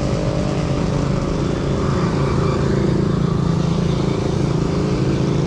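A vehicle engine running steadily close by, over a low, uneven rumble.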